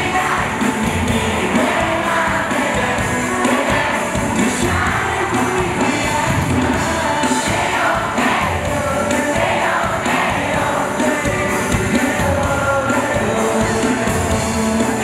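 Live pop song: male vocalists singing into handheld microphones over loud, steady pop accompaniment, with crowd noise from the audience.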